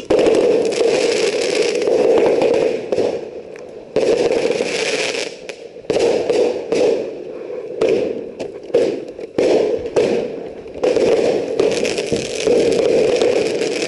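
A consumer firework going off: a series of loud bursts of hissing and crackling. Each burst starts abruptly and lasts a second or two.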